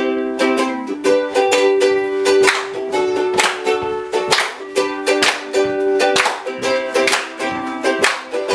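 Ukulele strumming chords in a steady rhythm, with a stronger strum about once a second and the chord changing every second or two.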